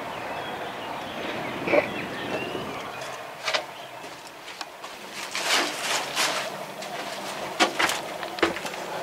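Outdoor ambience with faint bird chirps, then irregular scuffs and knocks on gritty stone from someone moving about inside a sandstone tower, with a cluster of longer scrapes around the middle.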